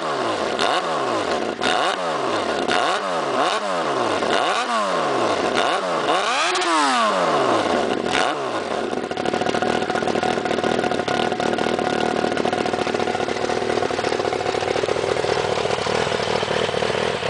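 1994 Honda CBR1000F inline-four with a drilled-out muffler (holes in the can, baffle pierced), revved in a string of quick throttle blips, the highest about six and a half seconds in. It then settles to a steady idle from about nine seconds.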